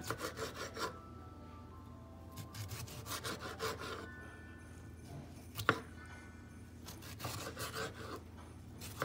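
Kitchen knife sawing back and forth through a tomato on a plastic cutting board, in short runs of strokes. There is one sharp tap about halfway through.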